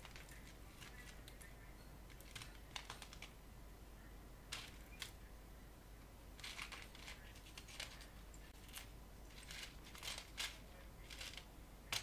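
Faint, scattered clicks and short rattles of small parts being picked through by hand, while small conical-head screws are searched for.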